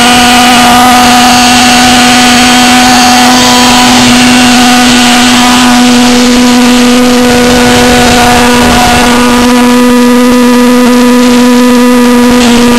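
Model pulsejet engine running flat out, giving a very loud, steady buzz that holds one pitch throughout.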